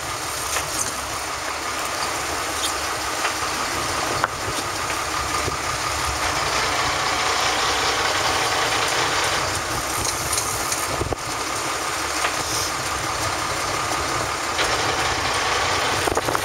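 Boat engine running steadily under a constant rush of wind and water noise, with a couple of faint knocks.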